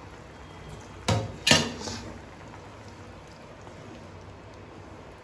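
Two sharp knocks of kitchen utensils against a metal kadai, about half a second apart, over the soft steady bubbling of curry simmering in the pan.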